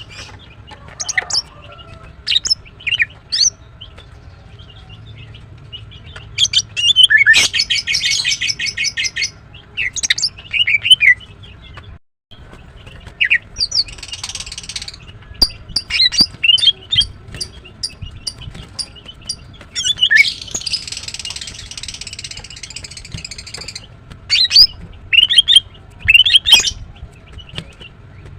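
Female greater green leafbird (Chloropsis sonnerati) calling: a string of sharp, high chirps broken by three longer, buzzy rattling trills, about a third of the way in, near the middle and for several seconds later on.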